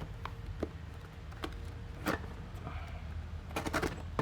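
Scattered small clicks and taps of an SSD package being cut and pried open with a knife, with a louder one about halfway and a quick run of clicks near the end.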